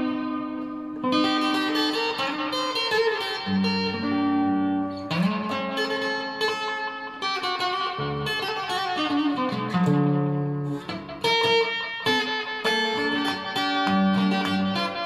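Steel-string acoustic guitar played fingerstyle: a plucked melody over ringing bass notes, played continuously.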